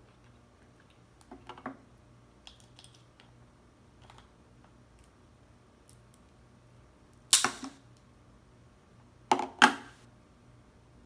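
Cooked crab leg shells cracked and snapped apart by hand: a few faint clicks about a second and a half in, then one loud sharp crack about seven seconds in and two more in quick succession near the end.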